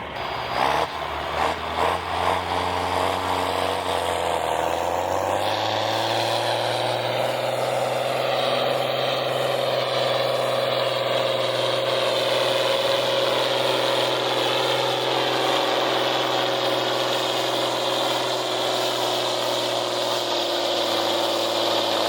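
A pulling tractor's engine revs up over the first five seconds or so, then runs steadily at high speed for the rest of the time, as when it is pulling the sled down the track.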